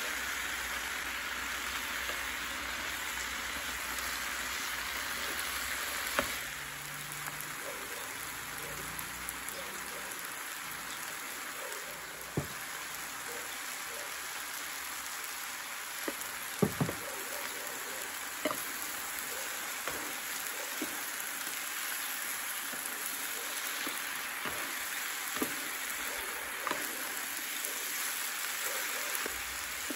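Japchae noodles and vegetables frying in an electric skillet as they are tossed with wooden chopsticks: a steady hiss, broken now and then by sharp clicks of the chopsticks against the pan. A low hum cuts off about six seconds in.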